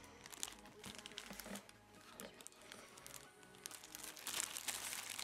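Clear plastic bag crinkling and crackling as a new leather baseball glove is handled inside it, in many small irregular crackles, with faint music underneath.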